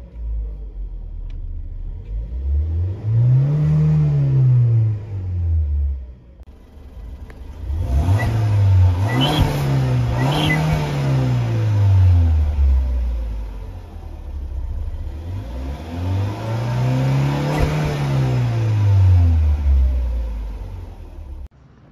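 Volvo S60 T4's B4164T 1.6-litre turbocharged four-cylinder engine revved from idle and let fall back four times: once, then twice in quick succession, then once more, with the later revs heard at the rear muffler's tailpipe.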